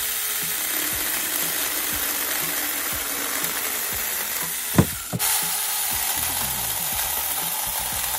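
SAKER 4-inch battery-powered mini chainsaw running steadily as its chain cuts through a tree branch. A single short knock sounds a little before five seconds in, and the sawing drops out for a moment before it carries on.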